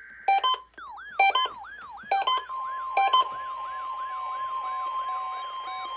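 Weather alert radio receivers going into alarm on a test alert. Four loud beeps come about a second apart over a warbling siren that sweeps about three times a second, and a steady tone joins about two and a half seconds in.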